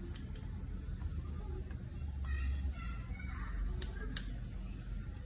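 Scratchy drawing strokes of a pen on paper, with a few sharp clicks about four seconds in, over a steady low hum and faint background voices.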